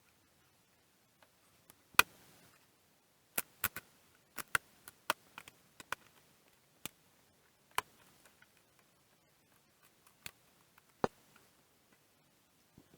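About a dozen scattered sharp clicks and taps, irregularly spaced with short silent gaps between them, from small parts and a screwdriver being handled while a digital microscope's housing is taken apart. The loudest click comes about two seconds in, and several follow close together a little later.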